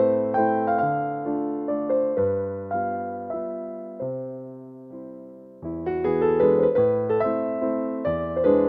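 Background piano music: a gentle melody over chords, with struck notes fading out. It thins to a few held notes about three and a half seconds in, then picks up again, fuller, just before six seconds.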